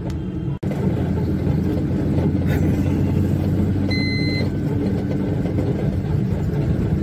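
Tata Ace mini truck's engine running and road rumble heard inside the cab while driving. The sound drops out for an instant just after the start, and a short high beep sounds about four seconds in.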